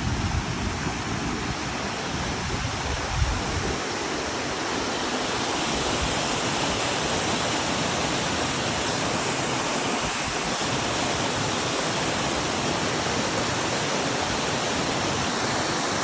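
Steady rushing noise of running water, growing a little louder over the first few seconds and then holding even. There is one brief low thump about three seconds in.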